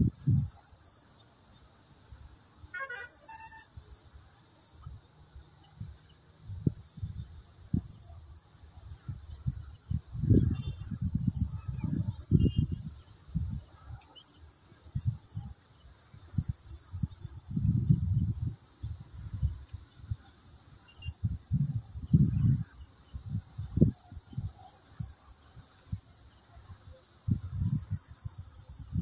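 A steady, high-pitched insect chorus drones without a break, with irregular low rumbles underneath it.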